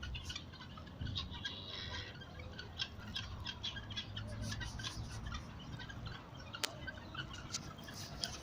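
Many small birds chirping at once, short high calls overlapping continuously over a low background rumble, with one sharp click about two-thirds of the way through.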